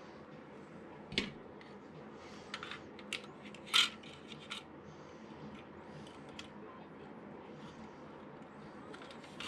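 Scattered light clicks and taps of painted sheet-metal parts of a Lionel 3656 cattle corral being handled and fitted together, the loudest a sharp knock about four seconds in.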